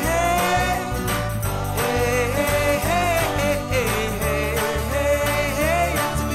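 Upbeat pop background music with a steady beat and a sliding melodic lead.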